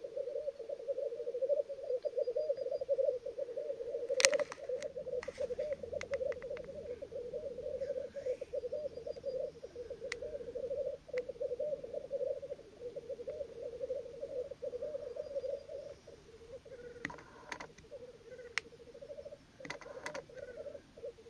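Male black grouse in lek display: a continuous low bubbling coo, the rutting song, broken by short hissing calls, the loudest about four seconds in and a few more near the end. The bubbling thins out after about sixteen seconds.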